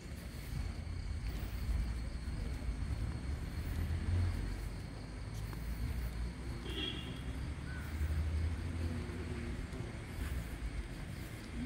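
Outdoor ambience dominated by a low, fluctuating rumble, with a few faint brief chirps about seven seconds in.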